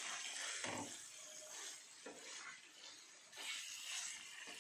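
Chicken masala sizzling faintly on a nonstick tawa as a spatula stirs and scrapes through it in a few separate strokes, the thick gravy being cooked down until dry.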